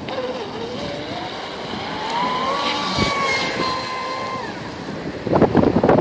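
Traxxas Spartan RC speedboat at speed: its brushless electric motor gives a high whine that climbs in pitch over the first two seconds, holds, and stops about four and a half seconds in, over the hiss of the hull and its spray on the water. Near the end a louder burst of rough noise takes over.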